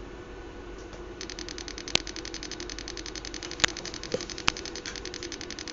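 Small speaker driven by an Arduino Mega2560 crackling. Starting about a second in, it gives a rapid, even train of clicks, with a few louder clicks among them. This is a crackling sound rather than the 3500 Hz tone it was set to play.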